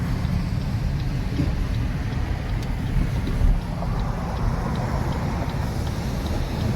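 Steady low road and engine rumble of a car being driven, heard from inside, with faint regular ticks about twice a second.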